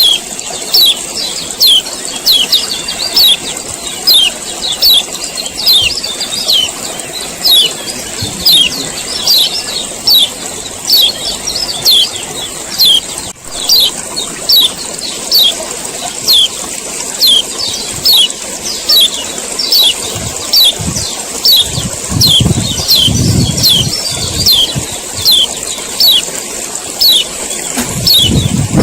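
Male kecial kuning giving its 'ciak ciak' call: sharp, high chirps that sweep downward, repeated about once a second over a steady high hiss. A low rumble joins in about two-thirds of the way through.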